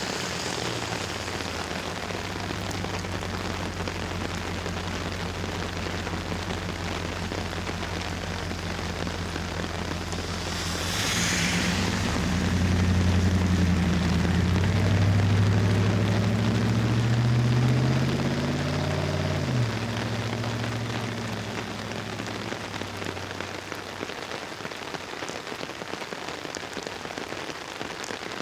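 Rain pattering steadily on an umbrella overhead. Under it runs a low hum that grows louder about halfway through, rises in pitch, and cuts off suddenly a few seconds later.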